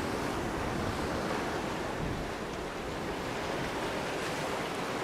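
Caribbean Sea surf washing steadily onto a rocky coral shore, with some wind on the microphone.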